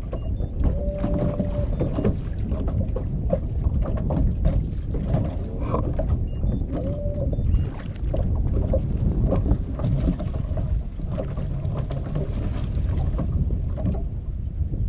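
Wind buffeting the microphone and choppy water splashing against the hull of a small fishing boat under way, a steady low rumble broken by irregular slaps. Two brief squeaks are heard, about a second in and again near the middle.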